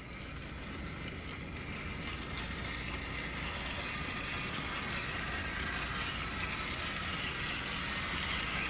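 Bachmann HO-scale model steam locomotive running steadily around its track, a small electric motor and gear whirr with wheel noise, getting gradually a little louder.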